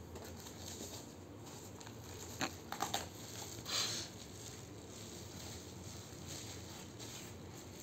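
Plastic bubble wrap being handled and lifted out of a box: a few sharp crinkling crackles about two and a half to three seconds in, then a short rustle about a second later, with faint handling noise otherwise.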